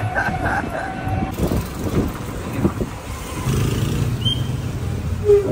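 Riding in an open-sided passenger tricycle: wind and road rumble with rattles and knocks from the vehicle over the road, and a steady low hum that comes in about midway.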